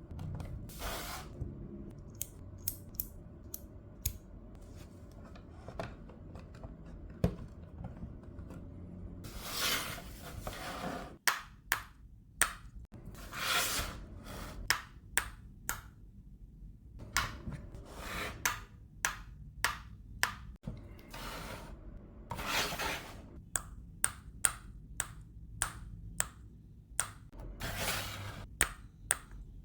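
Plastic LEGO pieces being handled and pressed together: many sharp clicks, coming several a second in the second half, with a few brief rustles in between.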